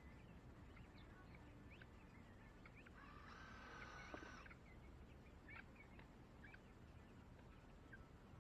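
Faint outdoor quiet with scattered bird chirps; about three seconds in, a cordless drill whirs once for about a second and a half at a steady pitch.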